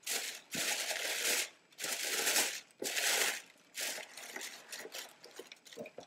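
Tissue paper crinkling and rustling as it is pulled back in a shoe box to unwrap an ankle boot, in four bursts, the last one longer and quieter.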